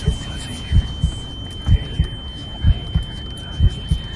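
Heartbeat sound effect: pairs of low thumps repeating about once a second, over a steady high-pitched tone.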